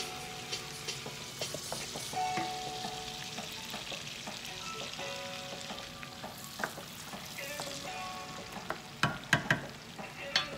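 Chopped onion and garlic sizzling in butter in a nonstick skillet, stirred with a wooden spoon, with a steady hiss and small crackles. A few loud knocks come near the end.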